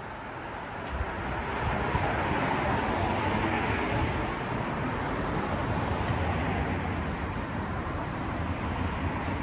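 Road traffic going by, swelling over the first two seconds and then holding steady.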